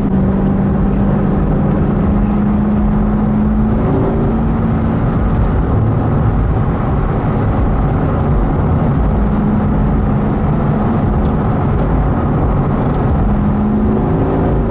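Corvette's V8 engine droning steadily while cruising, heard from inside the cabin with road rumble under it; the pitch shifts a little a few times as the speed changes.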